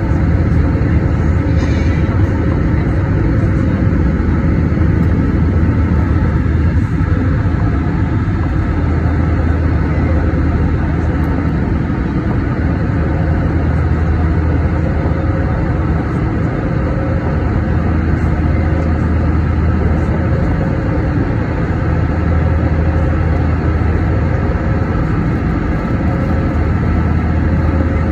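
Steady cabin drone of an Airbus A320-232's IAE V2527-A5 turbofans in flight, heard from a window seat over the wing: a deep hum under a constant rushing noise.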